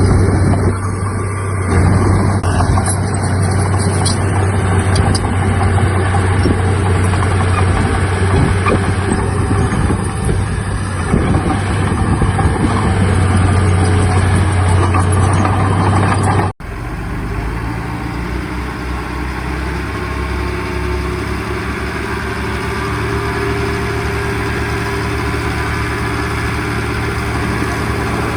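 Heavy diesel earthmoving machinery running steadily with a strong low hum. The sound breaks off abruptly about sixteen seconds in and resumes as a different, somewhat lower-pitched engine sound.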